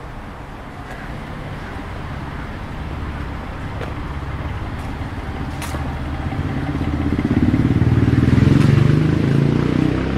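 A motor vehicle's engine approaching and passing, growing steadily louder to a peak near the end and then beginning to fade.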